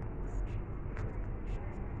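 Steady background noise with a few faint clicks.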